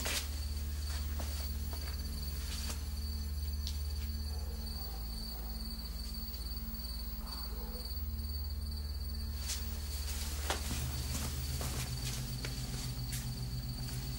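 Crickets chirping steadily at night over a low, sustained drone of background music, with a few faint clicks.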